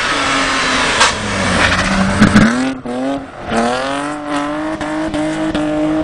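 BMW 3 Series rally car's engine at high revs as it slides sideways through a corner, the pitch falling and rising with gear changes and throttle lifts, with tyres squealing. Two sharp cracks come about a second in and just after two seconds.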